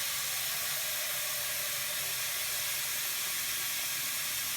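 Kitchen tap running in a steady hiss, filling a pot with water to boil.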